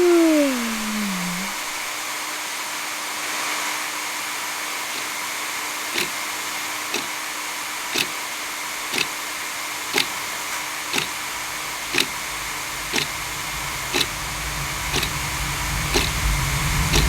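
Hair dryer blowing with a steady whirring hiss and hum, its pitch falling in the first second or so. Sharp ticks come about once a second through the second half.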